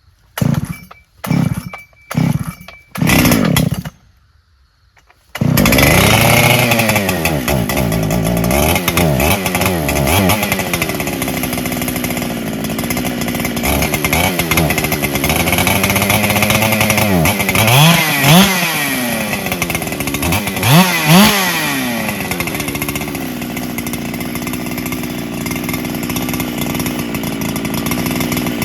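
Solo 681 two-stroke chainsaw being pull-started: a few short pulls of the starter cord, then the engine catches about five seconds in. It then runs, the revs rising and falling several times, and holds a steady pitch near the end.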